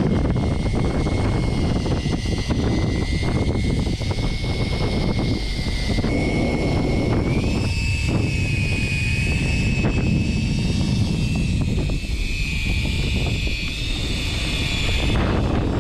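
Fishing boat's engine running steadily, a low rumble with a thin high whine that steps up slightly in pitch about seven seconds in.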